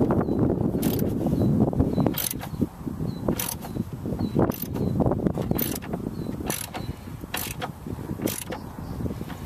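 A hand tool working the nut on a vehicle battery's cable clamp: metal scraping and grinding, with a sharp click about once a second.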